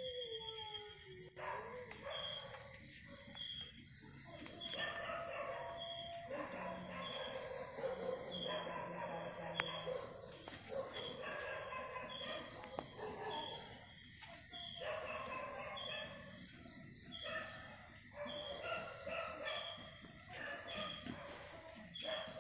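Night-time animal chorus: a steady high drone with a short chirp about every second, under repeated calls of a second or two each.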